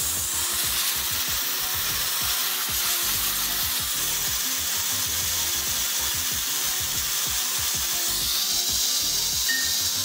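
Compressed air hissing steadily from an air-compressor blow-gun nozzle aimed at a fidget spinner, spinning it up.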